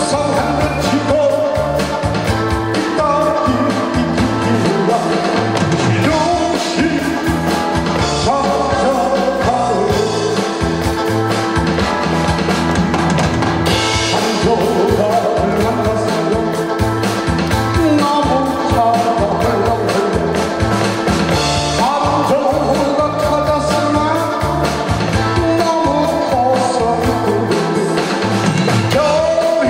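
A man sings into a microphone over amplified band accompaniment with drums and a steady beat.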